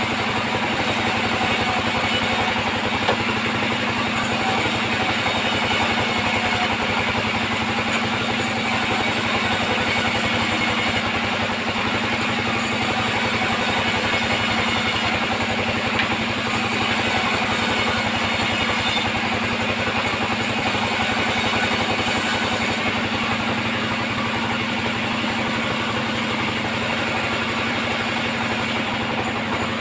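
Sawmill band saw running steadily: a constant mechanical drone with a steady hum and an even rushing noise, unchanged throughout.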